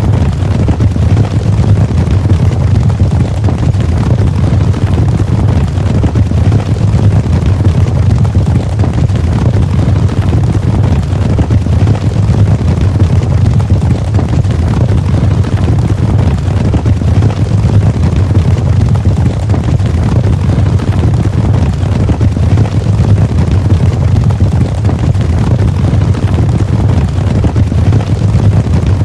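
Cavalry charge sound effect: the hooves of many galloping horses merging into a steady, dense, low rumble.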